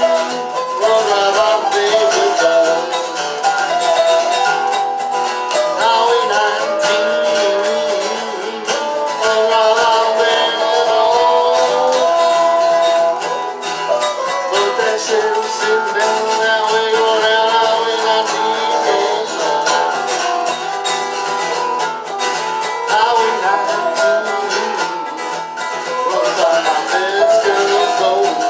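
Acoustic folk band playing an instrumental break on plucked string instruments: a picked melody line over strummed rhythm chords.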